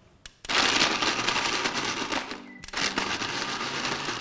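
Countertop blender starting up about half a second in and crushing ice for an ice-blended coffee, a loud rattling whirr; it dips and cuts out briefly just past halfway, then runs again.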